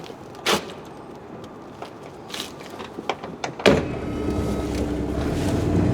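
Scattered light clicks and knocks, then a sharp thump about two-thirds of the way in, after which a steady low rumble with a faint hum sets in and keeps going.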